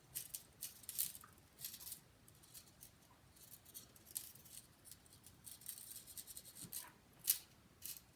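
Faint, irregular scraping and light clicks of a small hand tool working the power button out of an iPhone 5's aluminium housing. The sharpest click comes about seven seconds in.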